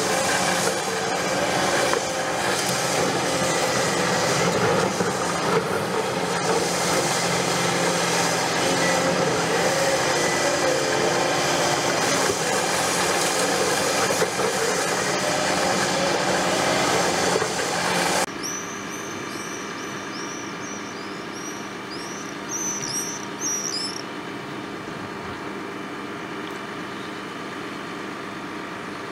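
CAT 330F excavator working under load with its drum attachment grinding concrete foundations: a dense, rasping grind over the engine with a wavering tone. About two-thirds of the way in it cuts suddenly to a quieter, steady engine sound, with a bird chirping for a few seconds just after.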